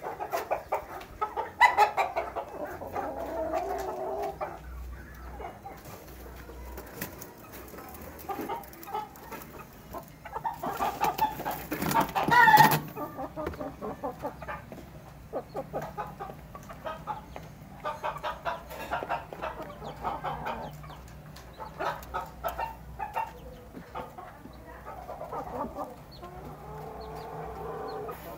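Domestic chickens, a rooster and hens, clucking in short calls while they peck at rice, with many quick taps throughout. A louder, harsher burst comes about eleven to twelve seconds in.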